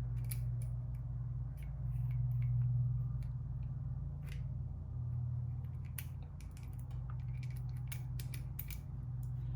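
Snap ring pliers working a steel snap ring over the transmission countershaft: scattered sharp metallic clicks and ticks as the ring is spread and slid toward its groove, with a loud click near the end. A steady low hum runs underneath.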